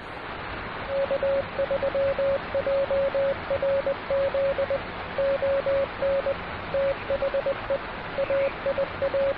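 Morse code (CW) tone keyed in dots and dashes over the steady hiss of shortwave radio static.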